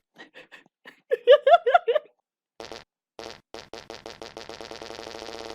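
A fart sound sample: a few faint short puffs, then a quick run of about six loud pitched blasts. It is then chopped into repeats that come faster and faster until they run together into a steady buzzing tone.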